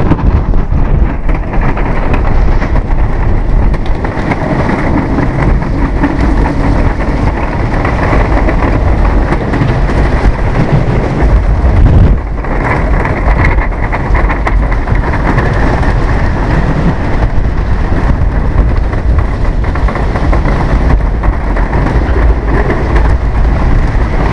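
Loud wind rush on the microphone over the rumble and clatter of a wooden roller coaster train running at speed on its track, heard from a riding car. The noise is steady, with a brief dip about halfway through.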